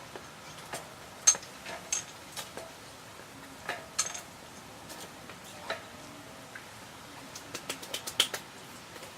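Irregular sharp metallic clicks and clinks, as of tools and parts being handled on a mountain bike, with a quick run of ticks near the end.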